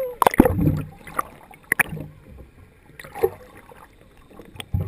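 Water sloshing and splashing against a boat's hull, with scattered sharp knocks and clicks, loudest in the first second.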